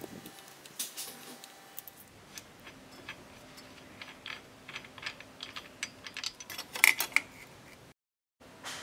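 Scattered light clicks and clinks of small parts being handled on an angle grinder: the wheel guard and its clamp being worked by hand. There is a louder quick run of clicks about seven seconds in.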